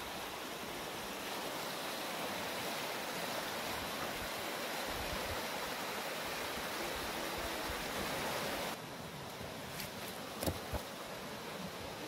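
Mountain stream running over rocks in small rapids, a steady rush of water. It cuts off suddenly about three-quarters of the way through, leaving quieter outdoor hiss with a couple of light knocks.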